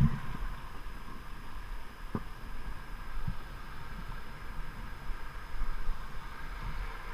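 Steady low rush of river water around an inflatable whitewater raft, with a faint knock about two seconds in.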